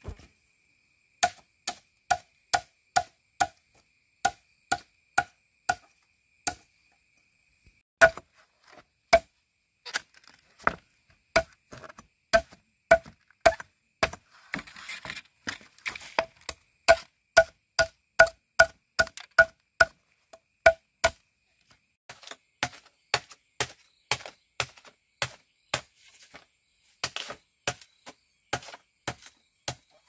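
Steady chopping strikes on bamboo, about two to three a second with a few short pauses. Many strikes carry a short ringing tone.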